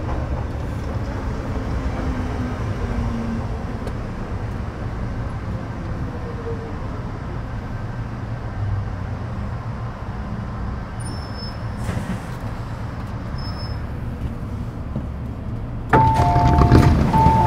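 Low, steady rumble inside a Metro Cammell M-Train electric multiple unit. Near the end, the door warning chime starts suddenly and loudly: two alternating beeping tones.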